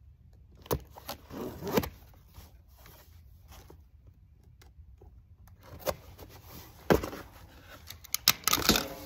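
Cardboard box being handled and opened: scraping and rustling of cardboard, with a few sharp knocks and taps, the loudest about seven seconds in and just before the end.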